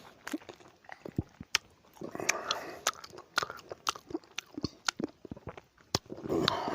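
Close-miked biting and chewing of lemon: a run of sharp, wet crunches and mouth smacks, with two longer, denser stretches of chewing about two seconds in and near the end.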